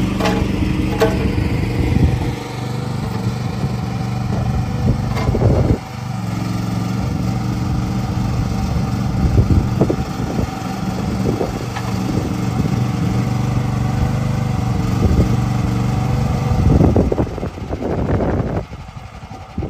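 Mini excavator's small engine running steadily while the boom and tilting bucket are worked, with occasional short knocks from the machine. The sound drops off about a second before the end.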